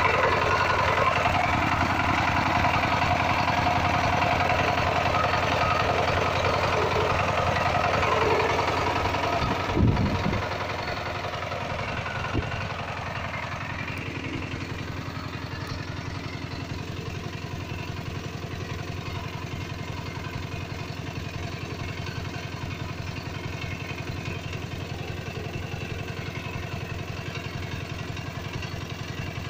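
Kirloskar Mega T15 power tiller's single-cylinder diesel engine running with a steady knocking beat. About ten seconds in come two sharp thumps, and the engine then runs on more quietly and steadily.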